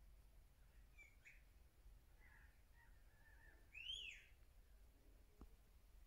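Faint bird calls over near silence: a few short chirps, then one louder arched note about four seconds in.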